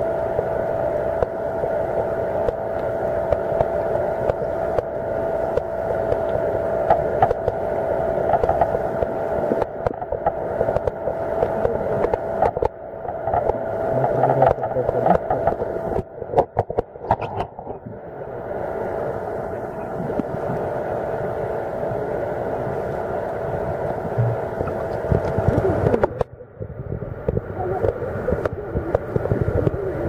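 Steady underwater hum with a constant droning tone, overlaid with fine crackling and clicks; the hum cuts out suddenly near the end.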